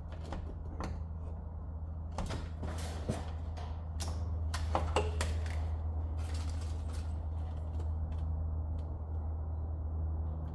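Stud welder humming steadily while studs are welded onto a dented car body panel, with irregular sharp snaps and clicks as each stud is fired on, thickest about halfway through.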